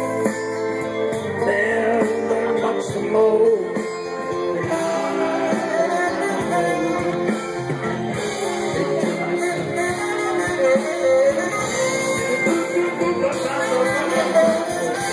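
A live band playing amplified music, with guitar and a singer.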